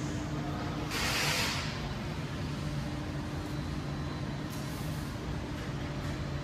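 Softgel production machinery running with a steady low hum and one constant tone, and a short burst of air hiss about a second in.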